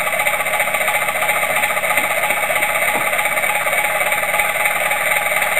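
Looped recording of a diesel engine running, played back through a small loudspeaker by a cheap ISD1820 voice record/playback board. The sound is steady and thin, with little bass.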